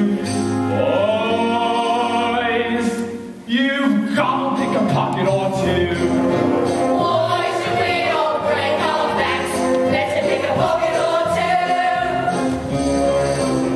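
Stage musical cast singing together over musical accompaniment in a live performance, with a brief drop in the sound about three and a half seconds in.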